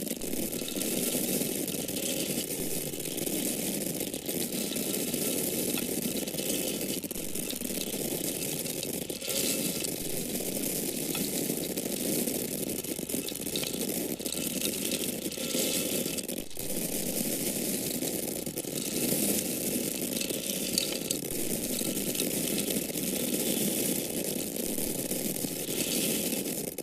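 Dry corn kernels falling in a continuous stream, a dense, steady rattle of many small grains striking and sliding over one another without a break.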